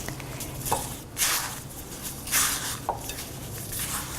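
Raw boneless chicken pieces being mixed with all-purpose flour in a bowl for marinating: soft, wet squishing in about three separate strokes, roughly a second apart.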